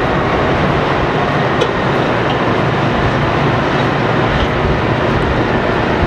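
Caterpillar 657E twin-engine wheel tractor scrapers working in push-pull while loading dirt. Their diesels give a steady, loud drone under load.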